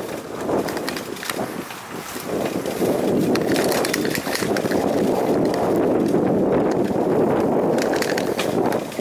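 Bicycle rolling over a dirt single-track path: steady tyre and riding noise with frequent small clicks and rattles from the bike over the rough ground.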